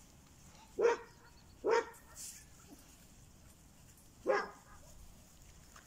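A dog barking: three short barks, two close together about a second in and a third past the four-second mark.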